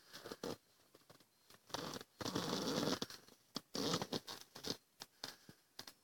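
Irregular rustling and scratching, with a dense stretch of rustle about two to three seconds in, another burst near four seconds, and scattered sharp clicks between.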